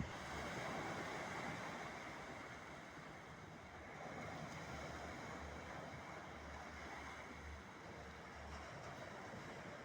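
Black Sea waves washing on the beach, a steady surf hiss that swells gently, with some wind buffeting the microphone.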